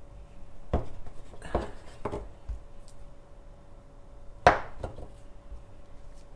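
A large kitchen knife cutting through soft dough and knocking down onto a bamboo cutting board: a few separate dull knocks, with one sharper, louder knock about four and a half seconds in.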